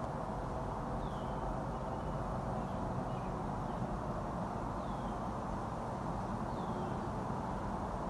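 Steady low background rumble of open-air ambience, with a few short, faint bird chirps that fall in pitch, the clearest about a second in, around five seconds in and near seven seconds in.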